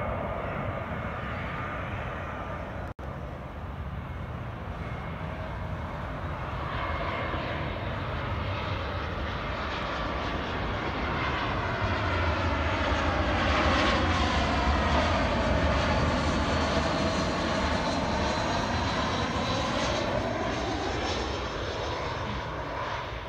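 Airbus A320-232's two IAE V2500 turbofan engines on final approach. The jet noise grows louder as the airliner passes closest near the middle, its tone sweeping down and back up, then eases as it descends toward the runway.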